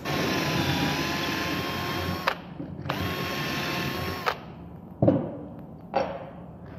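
Electric drill boring an 8 mm dowel hole through a doweling jig's guide bushing into the face of an 18 mm board. It runs twice with a steady whine, first for about two seconds, then after a short pause for about a second and a half, and each run cuts off suddenly. Two sharp knocks come near the end.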